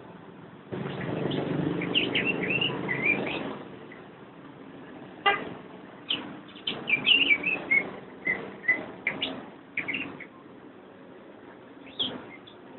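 Cucak ijo (greater green leafbird) singing: quick, varied chirps and short whistled notes that rise and fall, in short phrases. For about three seconds near the start, a motor vehicle's engine runs under the song.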